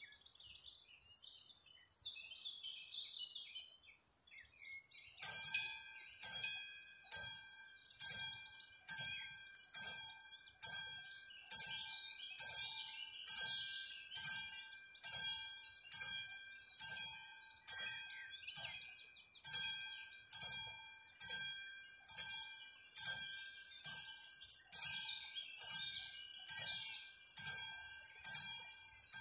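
Level-crossing warning bell on an AŽD 71 signal, the classic mechanical type, starting about five seconds in and then striking steadily at about three strikes every two seconds: the crossing has activated for an approaching train. Birds chirp before the bell starts.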